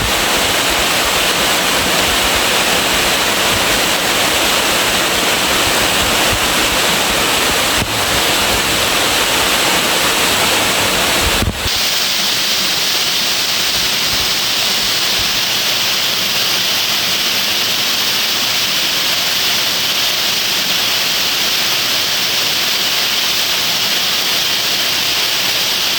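Hareshaw Linn waterfall pouring, a loud steady rush of falling water. About halfway through there is a brief dropout, after which the deep rumble drops away and the rush sounds thinner.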